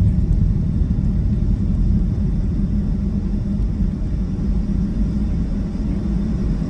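Steady low rumble heard inside the cabin of a Boeing 757-200 as it taxis.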